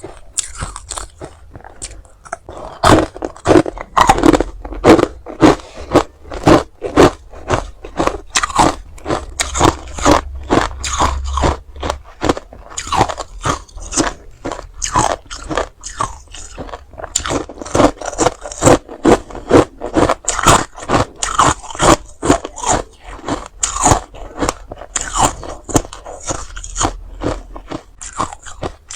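Hard ice being bitten and chewed close to the microphone: a fast run of loud, sharp crunches, two or three a second, quieter for the first couple of seconds.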